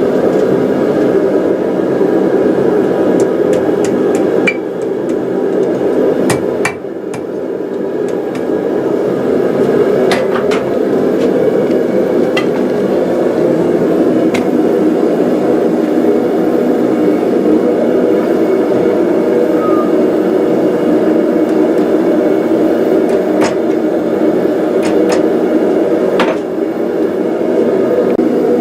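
Hammer blows on hot square steel at the anvil, drawing out a taper on the bar's end, over a steady rushing noise that runs throughout.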